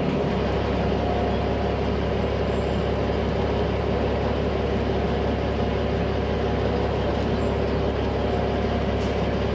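Diesel engine of a Peterbilt 379 semi truck running at a steady low speed as the truck rolls slowly, a constant low drone.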